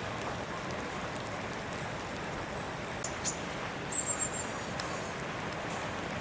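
Steady background hiss, with a few short high-pitched chirps about three and four seconds in.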